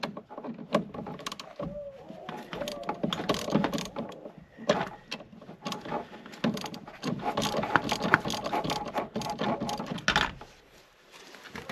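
Socket ratchet wrench clicking in quick strokes as the bolts of a winch switch box are turned, with short pauses between runs. It stops near the end.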